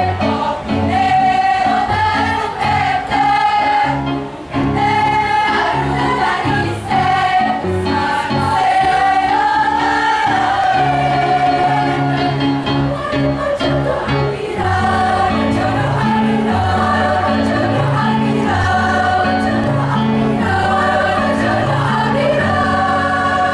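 A choir singing a song in harmony, the low parts moving in steady held steps under the higher melody.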